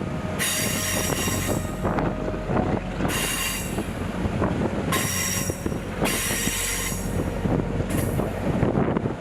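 Passenger rail cars rolling over the track: a steady rumble with rattles and clicks, broken by five spells of high-pitched steel wheel squeal, typical of wheels grinding against the rail on a curve.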